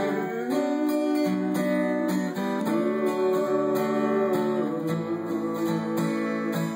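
Acoustic guitar strumming chords, an instrumental passage between sung lines.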